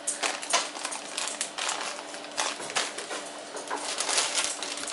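Spice containers being handled and shaken while seasoning is added: an irregular string of quick clicks, taps and rattles.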